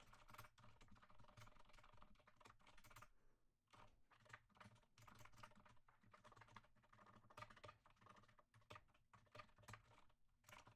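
Faint typing on a computer keyboard: quick runs of keystrokes broken by brief pauses.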